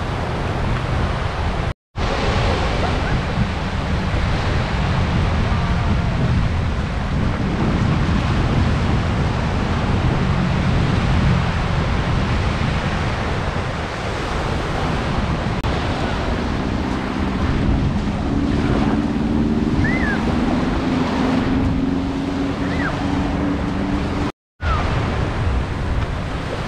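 Small sea waves breaking and washing up over a sandy shore, a steady surf wash with wind on the microphone. The sound cuts out for a moment twice.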